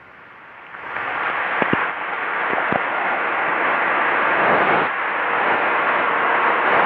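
Loud hiss of static on a telephone line, swelling up about a second in, with a few faint clicks about two seconds in.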